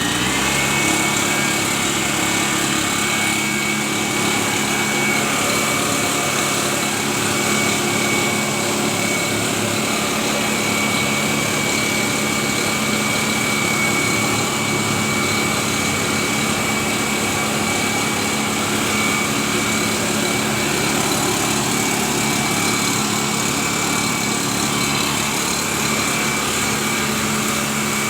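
Tasco MD-150 mist blower's small two-stroke engine running steadily at high speed, with a steady high whine. It revs up right at the start, then holds an even pitch.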